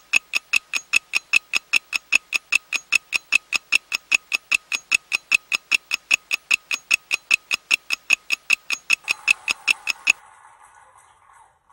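Clock-like ticking sound effect: sharp, evenly spaced ticks, about five a second, that stop abruptly about ten seconds in, followed by a faint hiss.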